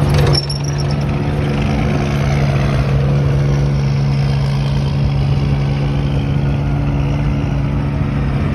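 Engine of a tracked armoured vehicle running with a steady drone as it drives past, with a slight drop in level shortly after the start.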